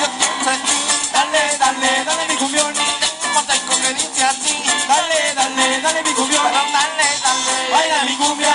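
Live cumbia band playing, with a fast, even percussion rhythm under a gliding melody line.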